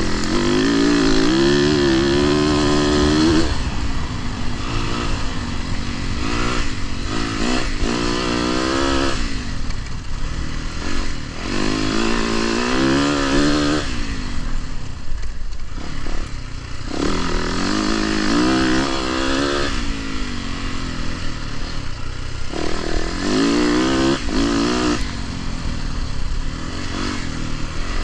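Dirt bike engine revving up and easing off over and over as it is ridden, the throttle opening in surges of a few seconds each with the pitch climbing and dropping.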